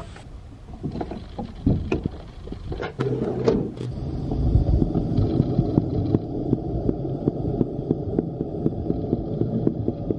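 Stunt scooter's wheels rolling on a concrete path: a few knocks as the rider gets going, then from about four seconds a steady rumble with regular light clicks, about three a second.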